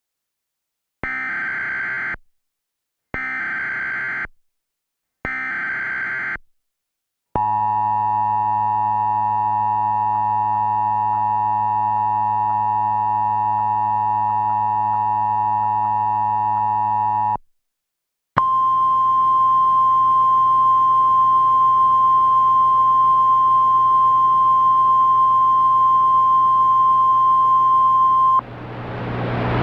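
Emergency Alert System tones: three one-second bursts of screeching SAME header data, then a steady buzzing attention tone for about ten seconds. After a short gap comes a single pure high alarm tone for about ten seconds, typical of a weather-radio warning tone, cut off near the end by a rush of hiss.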